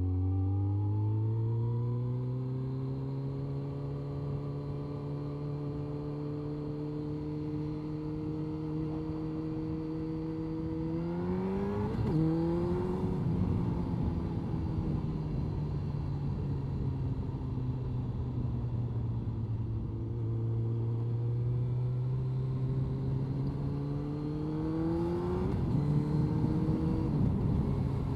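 Honda CBR1100XX Blackbird's inline-four engine, heard from inside the rider's helmet with wind and road noise. The engine note rises as the bike accelerates, then holds steady. About twelve seconds in, and again near the end, the revs climb and then drop at an upshift.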